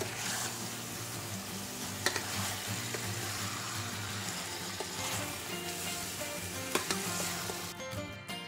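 Chicken pieces sizzling in hot oil in a stainless steel pot while being stirred with a metal spoon, with a couple of sharp clicks of the spoon against the pot. This is the sauté stage, browning the chicken before the water goes in. The sizzling stops abruptly near the end.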